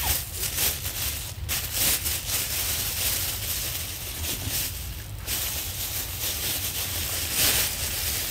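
Irregular rustling of leafy undergrowth, over a steady low rumble.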